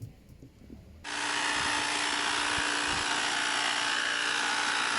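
Tyre inflator pumping air into a repaired motorbike tyre whose bead has been soaped to help it seat on the rim: a loud steady hiss with a steady hum under it, starting suddenly about a second in.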